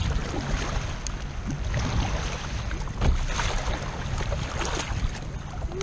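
Kayak paddle strokes dipping and splashing on alternate sides, with choppy water slapping against the hull and wind rumbling on the microphone.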